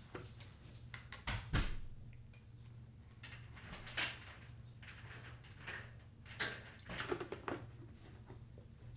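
Plastic milk jug handled at a table: its screw cap twisted off, with a sharp knock about a second and a half in, then milk poured into a bowl of cereal around four seconds in, and the cap screwed back on near the end.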